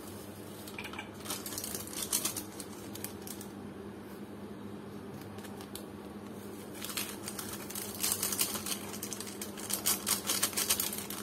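Crinkling and rustling of foil instant-coffee sachets (Nescafé Classic) being shaken and tapped out over glass cups, in two crackly bouts: one about a second in and a longer one from about seven seconds in.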